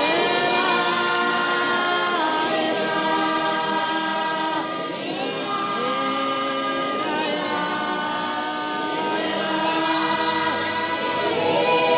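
Gospel choir singing a worship song, several voices holding long notes together and moving from note to note.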